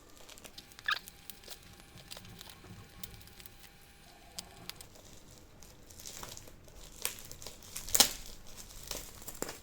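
A keyboard box and its packaging being handled and opened: scattered rustling, crinkling and light taps, with a sharper knock about eight seconds in.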